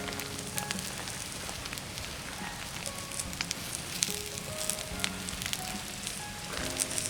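Food sizzling and frying in a pan over a wood fire, with many small scattered crackles and pops.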